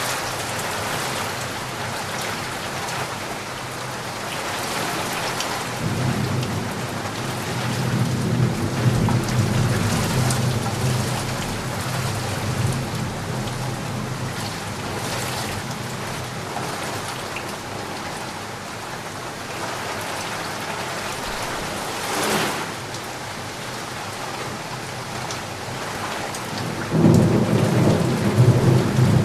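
Heavy rain falling steadily, with thunder rumbling from about six seconds in for several seconds, a sudden crack about twenty-two seconds in, and another loud rumble near the end.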